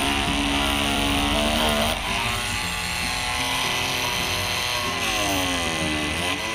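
Ingco CMLI2001 20V cordless oscillating multi-tool running as it cuts into a durian husk, a steady buzzing drone whose pitch dips and rises as the work goes on.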